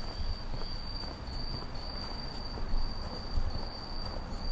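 A cricket's steady high-pitched trill, broken into phrases by brief gaps about every half second, over a low background rumble.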